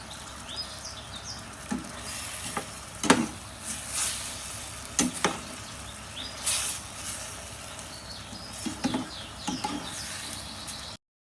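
Food sizzling as it fries in a pan, with a spatula stirring and knocking against the pan a dozen or so times. The sound stops abruptly near the end.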